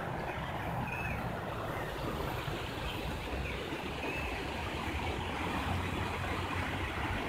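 River water rushing past below a concrete irrigation aqueduct, a steady rush with a low rumble underneath. A few faint high chirps come through now and then.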